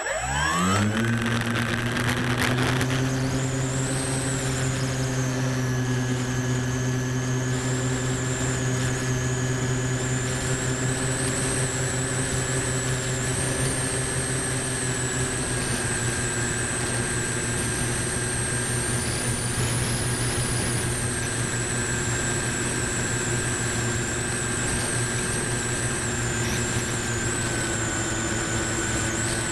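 Electric motor and propeller of a Multiplex Moviestar RC plane, heard close up from the camera on board. The motor spools up quickly about a second in, then runs at a steady full-throttle drone with a high whine through takeoff and flight, easing slightly near the end.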